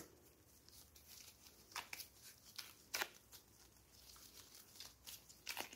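Gloved hands kneading soft biscuit dough in a floured glass bowl: a few faint, short rubs and pats of dough against glove and bowl.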